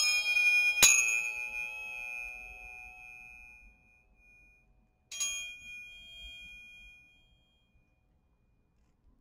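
Tuning forks struck together: a metallic clink about a second in, then several clear tones ringing and fading over about three seconds. A second strike about five seconds in rings out for about two seconds.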